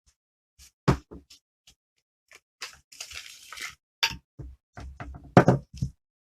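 Irregular knocks and clicks of metal parts and tools handled on a workbench while the air tank is taken off an FX Cyclone PCP air rifle, with a short rustle or scrape about three seconds in.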